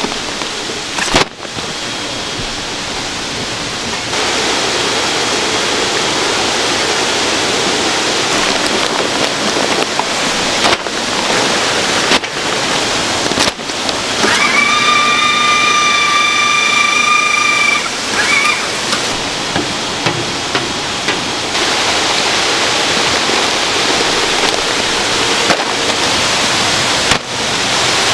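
Water gushing steadily from a pipe into a fish-rearing tank. A steady high-pitched tone sounds for about three seconds around the middle, and a few brief clicks are scattered through.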